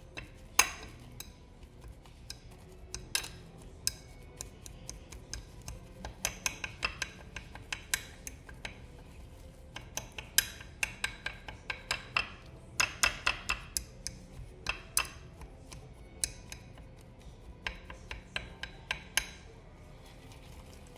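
A utensil stirring a thick, fluffy lotion-and-shampoo mixture in a bowl, clinking against the bowl in uneven runs of quick taps.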